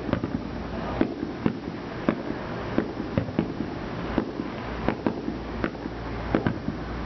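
Aerial fireworks shells bursting in an irregular string of sharp bangs, two or three a second.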